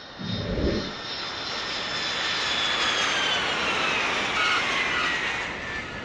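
Aircraft engine roar with a high whine that slowly falls in pitch. There is a low thump about half a second in.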